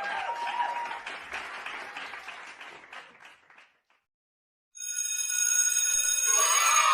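Children cheering and clapping, with a few shouted "yay"s, fading out after about three and a half seconds. After a short silence, a bright bell-like ringing tone starts, and near the end a crowd of children begins shouting and laughing over it.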